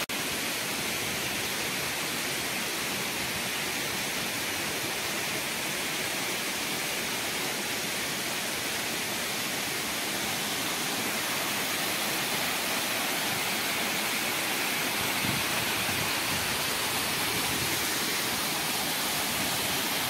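Waterfall rushing steadily, several thin cascades falling down a rock face into a pool.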